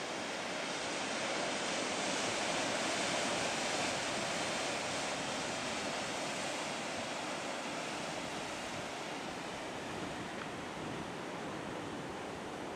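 Storm surf breaking and churning into whitewater: a steady rushing wash that swells a little louder a few seconds in, then eases off.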